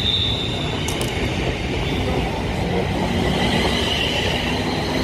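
Class 380 electric multiple unit passing close alongside the platform: a steady rumble of wheels on rail, with a high whine near the start and again about three and a half seconds in.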